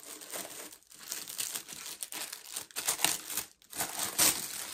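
Packaging crinkling and rustling in short, irregular bursts as it is handled, loudest near the end.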